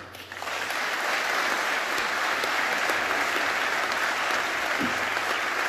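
Audience applauding steadily, starting about half a second in.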